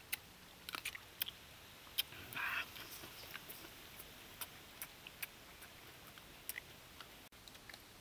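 Close-up chewing and biting of food: scattered sharp clicks and short crunchy bursts, the loudest a little over two seconds in.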